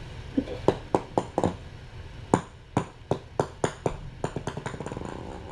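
A run of irregular sharp clicks and light knocks, about fifteen over a few seconds, with a quicker patter of small ticks near the end.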